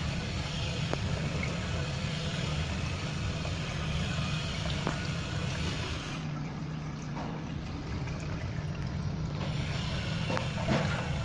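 Water running into a washbasin and draining down through its chrome bottle trap, a steady rush over a low hum. The rush thins out for a few seconds past the middle, then comes back.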